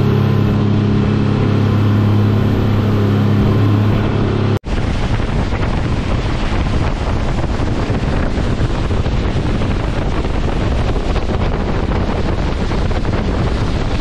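Boat engine running with a steady low hum; about four and a half seconds in it cuts off sharply to heavy wind buffeting the microphone and rushing water.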